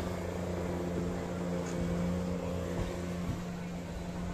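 An engine running steadily at an even pitch, giving a continuous low drone.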